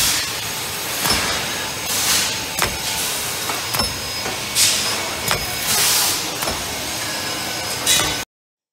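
Automatic glass circle-cutting machine working over a glass sheet: a steady mechanical noise with sharp clicks and knocks every second or so and several short hisses. The sound cuts off suddenly near the end.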